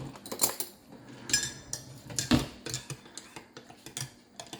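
Dishes and cutlery clinking and clattering as they are handled: three louder clatters, the loudest a little past halfway, with lighter taps between.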